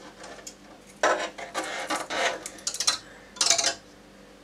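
Thin-walled vase-mode 3D-printed plastic shell crackling and creaking as it is gripped, crushed and pulled apart by hand, in irregular bursts with sharp clicks, a longer stretch followed by a short burst near the end.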